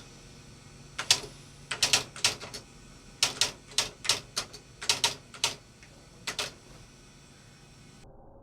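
Typewriter keys struck in a quick, irregular run of sharp clacks for about five seconds, then stopping.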